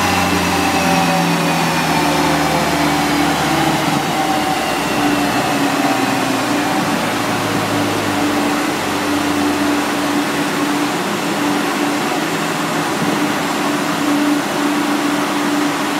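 Mini Cooper S R56 winding down on a chassis dynamometer after a power run. A falling whine from the spinning wheels and dyno rollers slides downward over the first several seconds, and the low drivetrain sound fades out about eight seconds in. Underneath runs a steady rush of air from a large cooling fan.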